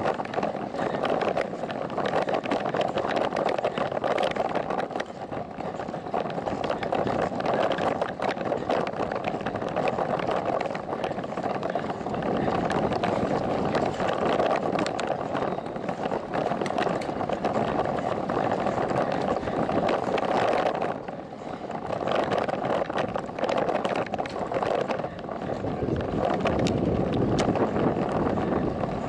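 Ride noise picked up by a camera on a slowly moving bicycle: a steady rushing noise with constant fine rattling and ticking from road vibration, dipping briefly about two-thirds of the way through.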